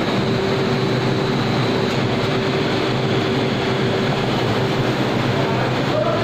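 Steady drone of food-processing machinery, with a constant low hum and a steady higher tone running unchanged beneath it.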